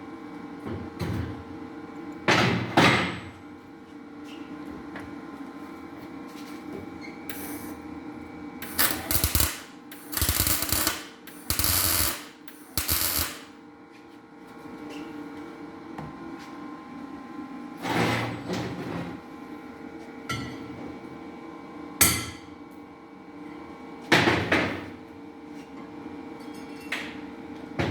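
Metal knocks and clanks on a cylinder head as welded valve seat inserts are driven out, with several short hissing bursts in the middle and a steady shop hum underneath.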